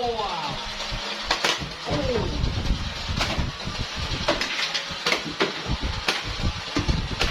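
Irregular clicks and knocks of plastic toy guns being handled, with a short falling tone about two seconds in.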